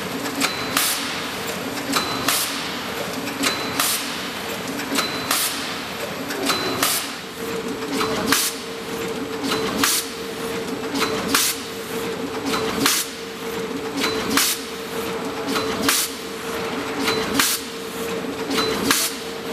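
Horizontal roll-film pouch-forming and sealing machine with zipper running in its cycle: a steady hum under a sharp stroke about every one and a half seconds, with lighter clicks between, as each indexing step works.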